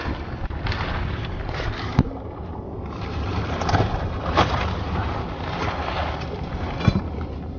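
Wind buffeting the microphone in a steady low rumble, with rustling and a few sharp knocks from handling as the camera moves among the rocks.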